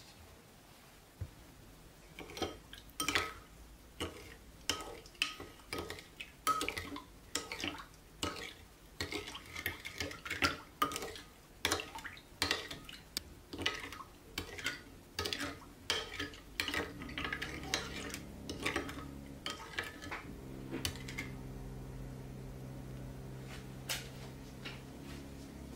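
Metal spoon stirring in a ceramic bowl of warm milk, dissolving yeast and sugar, clinking against the bowl's sides one or two times a second. In the second half a steady low hum comes in and cuts off suddenly near the end.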